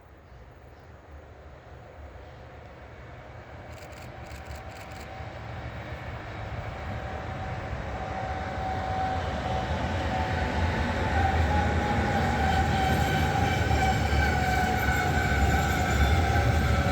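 A train approaching along the line, getting steadily louder, with a low rumble and a whine that rises out of it about halfway through.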